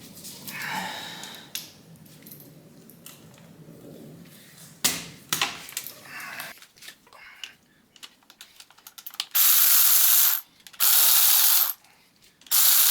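Power wrench running in three bursts of about a second each in the last few seconds, backing out bolts on the engine's front water pump. Before that, scattered clicks and knocks of hand tools on metal.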